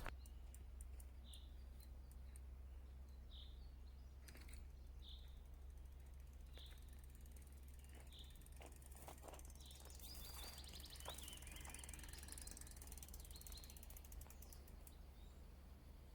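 Faint forest ambience: a bird repeats a short call every second or two, with scattered faint clicks and a quick run of ticking and trilling about ten seconds in.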